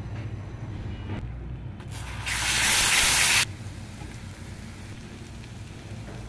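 A loud hiss lasting about a second, starting suddenly about two seconds in and cutting off abruptly, over a steady low hum.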